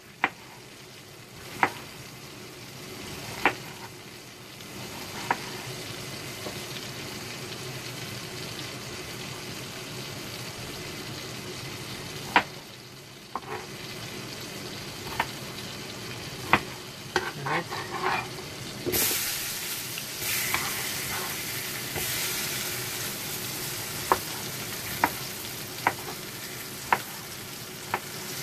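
Browning butter sizzling in a hot frying pan, with sharp taps of a knife on a cutting board as a green bell pepper is cut. About two-thirds of the way in the sizzle turns suddenly louder and brighter as pepper pieces go into the hot butter.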